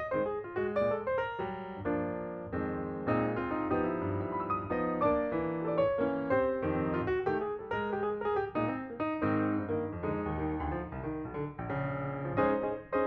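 Background piano music: a steady run of melody over chords.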